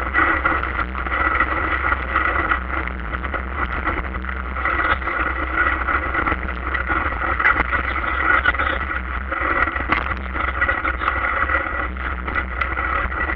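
Bicycle ridden over a rough, muddy dirt track, heard from a handlebar-mounted camera: a steady rumble with many small knocks and rattles as the bike jolts over the ground, and a constant high hum beneath.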